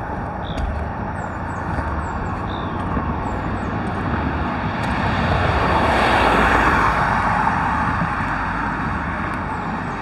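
Steady road traffic hum, swelling as a vehicle passes by about five to seven seconds in and then easing off. Small birds give short, high, down-slurred chirps over the traffic in the first few seconds.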